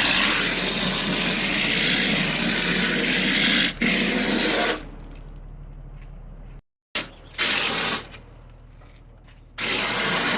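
Compressed air hissing through a mortar spray gun as structural mortar is sprayed, in bursts that start and stop abruptly: one long blast of about four and a half seconds, then two shorter ones. A lower steady hum runs between the blasts.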